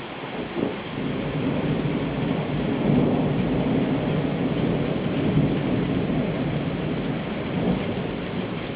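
Rolling thunder rumbling over steady rain. The rumble builds about a second in and slowly fades toward the end.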